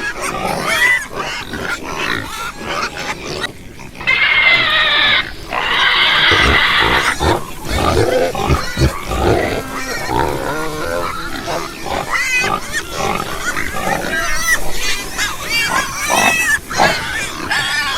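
Domestic pigs grunting and squealing, many short calls overlapping, with a louder, high-pitched squeal lasting a few seconds about four seconds in.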